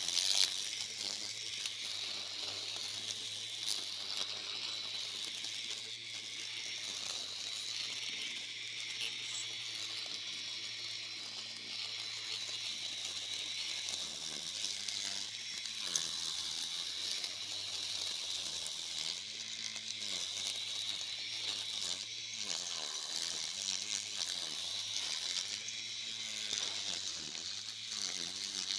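Homemade 24-volt battery-powered lawn mower running, its motor spinning a blade through grass: a steady high whine over a hissing, rattly noise of cutting, with a low hum that wavers up and down in pitch in the second half as the load changes.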